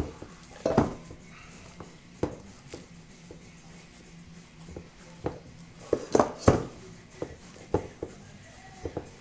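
Hands kneading and squishing a ground meat mixture in a stainless steel bowl: irregular wet squelches and knocks of hand and meat against the metal bowl, loudest in a cluster about six seconds in.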